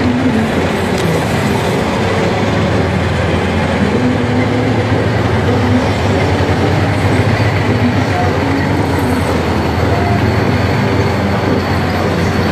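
Heavy military vehicles, including tanks, driving past with engines running and a continuous clattering, squealing noise of tracks and running gear.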